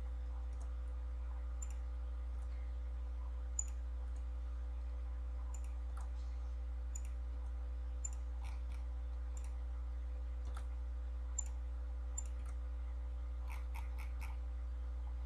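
Computer mouse clicks, a dozen or so at irregular intervals with a quick cluster near the end, over a steady low hum.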